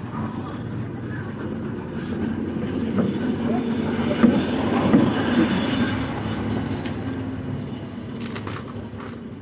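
A motor vehicle's engine rumbling past, growing louder toward the middle and then fading away.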